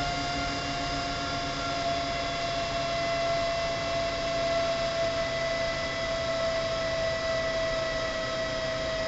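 Sanyo Denki San Ace 60 48-volt high-RPM cooling fan running under automatic temperature control: a steady whine over a rush of air. Its pitch sinks slightly as the controller lowers the fan's speed while the temperature drops.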